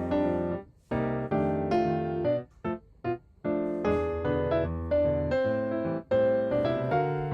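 Background piano music, a light keyboard melody with short staccato notes and a brief pause near the middle.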